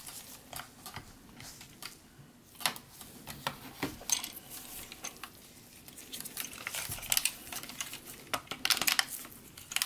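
Parts of a Gigapower Grassor transforming dinosaur figure clicking and knocking as they are handled and pressed together into place. The clicks and taps are irregular and come more often in the second half.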